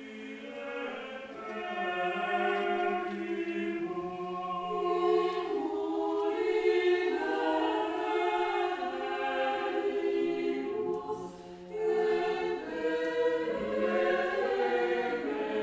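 A choir singing slow, held chords, with the voices briefly dropping away about eleven and a half seconds in.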